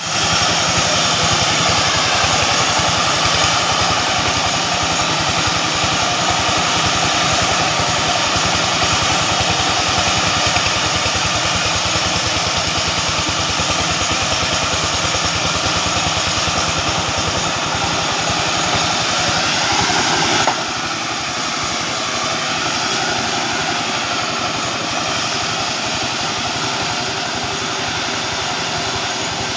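Engine-driven mobile sawmill saw running continuously at a loud, steady level; the sound drops suddenly to a lower level about two-thirds of the way through.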